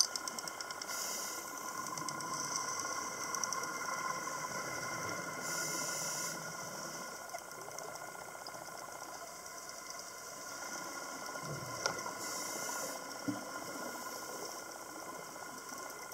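Underwater recording through a camera housing: a steady mechanical hum from the camera, with three short bursts of scuba regulator exhaust bubbles.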